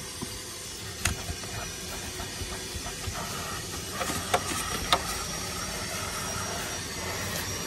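Steady hiss of falling rain, with a few light ticks and taps about a second in and around four to five seconds in.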